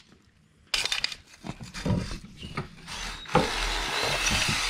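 Knocks and clatter as a spring-loaded cylinder hone is fitted into a snowmobile engine cylinder. About three and a half seconds in, a cordless drill starts and runs steadily, spinning the hone against the cylinder wall to roughen it so new piston rings can seat.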